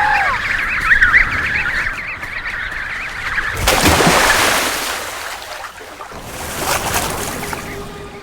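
A crowd of penguin chicks calling, many wavering whistles overlapping. About three and a half seconds in, a loud rush of noise covers them for a second or so, and a shorter, weaker rush follows near seven seconds.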